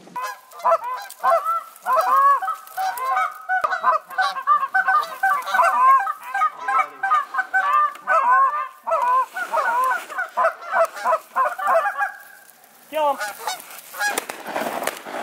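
Canada geese honking and clucking: a dense run of many overlapping short calls that stops about three-quarters of the way through, followed by a few scattered calls and a brief rush of noise.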